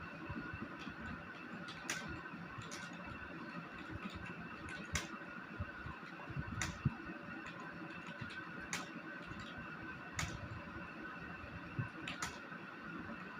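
Computer keyboard keys clicking irregularly as someone types a test paragraph, over a steady background hum.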